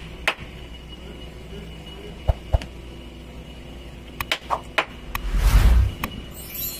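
Scattered sharp knocks and clicks, with a short loud rush of noise about five seconds in.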